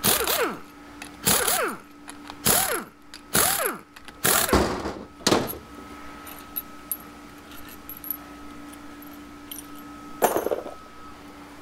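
Metal parts of a heat-destroyed 4L80E transmission pump being handled and worked apart on a bench: a run of five or six scraping clanks in the first five seconds, a few light ticks, then one more clank about ten seconds in.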